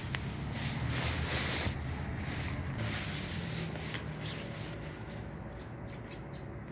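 Rubbing and rustling handling noise on a handheld phone's microphone, then a run of short, soft ticks in the second half as a calico stray cat eats food off a concrete step.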